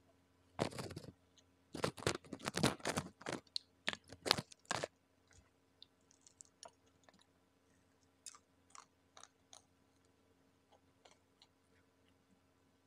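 Close-up crunching and chewing of crispy fried chicken, dense and loud for the first few seconds, then only a few faint clicks.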